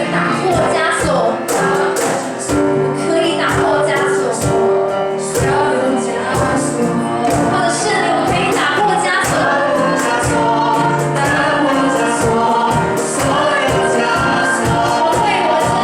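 Worship song sung by a group of singers with band accompaniment and a steady drum beat.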